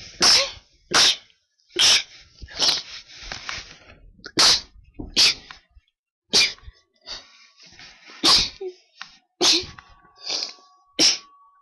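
A person sneezing over and over: about ten sharp sneezes, roughly one a second, with softer sounds between them.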